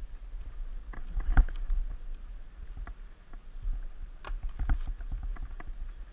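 Footsteps on a forest path and the rattle of a mountain bike being pushed alongside, with irregular knocks and clicks over a steady low rumble of wind and handling noise on the helmet camera.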